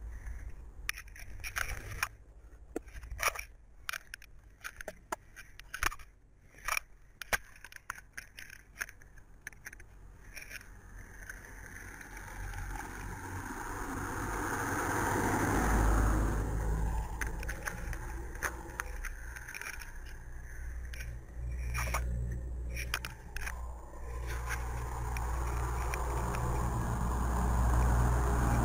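Close scratching and rubbing right at the microphone, in many short strokes over the first ten seconds or so. Then road traffic takes over: a vehicle approaches and passes about halfway through, and engines go on running low behind it.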